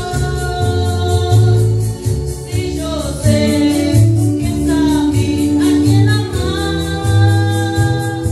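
A male singer singing a song live over a band or backing track, with a pulsing bass line and a steady percussion beat. He holds long notes.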